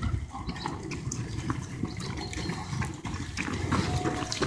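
Running footsteps on a paved path: a group of runners passing close by, their footfalls irregular and overlapping.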